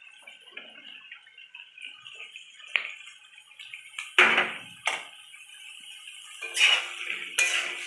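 Chopped green capsicum dropped into a kadai of frying onions, giving a few sharp knocks about three and four seconds in. Near the end a wooden spatula stirs and scrapes the vegetables around the pan, louder than before.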